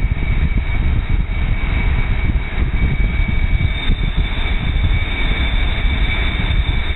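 Tow boat's engine running steadily at speed, with wind buffeting the microphone and a steady high whine.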